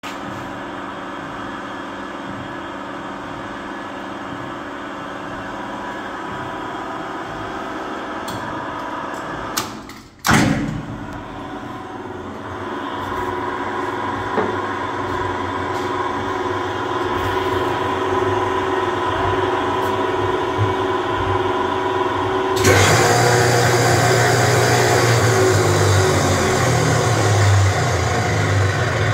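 Hollymatic 3000 mixer grinder running empty: its electric motors and gear drive give a steady mechanical hum with several held tones. About ten seconds in the sound briefly drops away and comes back with a sharp click, and about two-thirds of the way through it suddenly steps up louder and rougher, with a strong low hum.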